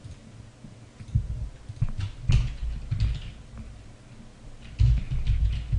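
Computer keyboard typing: irregular key presses, some landing as dull thumps, with a quicker run of keystrokes near the end.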